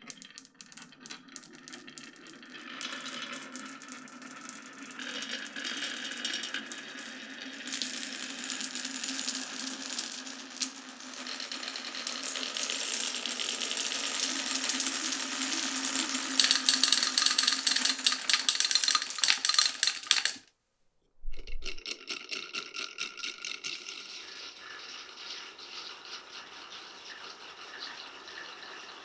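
Many glass marbles rolling and clattering down a wooden marble run, with a continuous rattle of clicks over a low rolling hum. The clatter grows busier and louder until about twenty seconds in, breaks off abruptly for under a second, then carries on more quietly.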